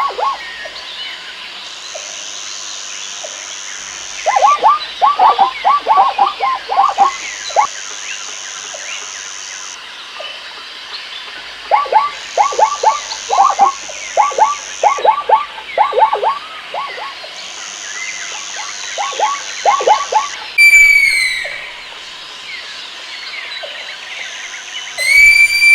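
Animal calls in a natural recording: several bursts of rapid, quickly falling calls, over a high buzz that switches on and off every couple of seconds. A loud, arching call comes about twenty seconds in.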